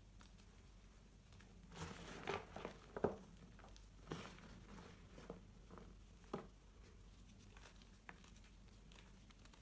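Pink reformed gym chalk crushed and crumbled between the fingers: a cluster of dry crunches about two seconds in, the loudest near three seconds, then single crunches about once a second and faint ticks of small pieces falling.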